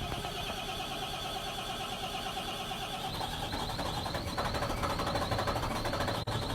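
Volvo L70H wheel loader's diesel engine running steadily, slowly growing louder, with a brief dropout near the end.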